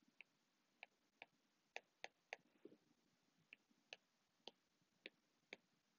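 Faint, irregularly spaced clicks of a stylus tapping a tablet screen while letters are handwritten, about a dozen short ticks.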